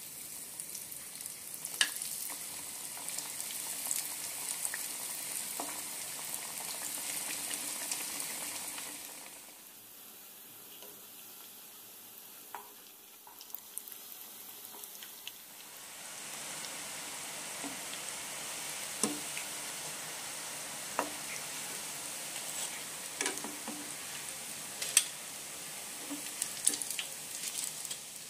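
Breaded pizza rolls deep-frying in hot oil: a steady high sizzle with scattered sharp pops and crackles. It goes softer for several seconds in the middle, then picks up again.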